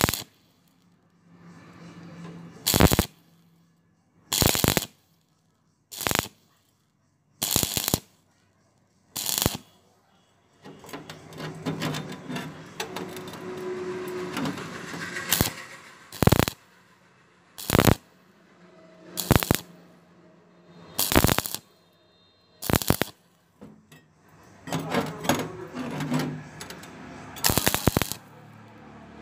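Stick (SMAW) welding arc on thin-walled square steel tube, crackling in short start-stop bursts about every one and a half to two seconds. In the middle and again near the end the arc runs for several seconds as a steadier, quieter crackle.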